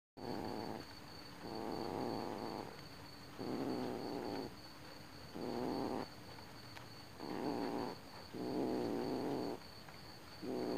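Kitten making a low rumbling purr-like sound over a rat it has caught. The sound comes in repeated stretches of about a second, roughly one every second and a half, with quieter breaths between.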